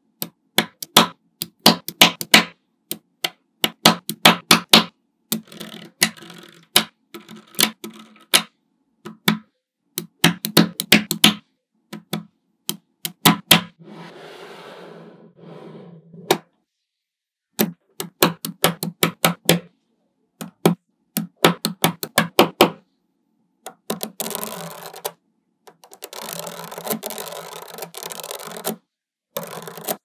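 Small magnetic balls clicking and snapping together in quick runs as rows and slabs of balls are pressed onto a build, with longer stretches of dense rattling.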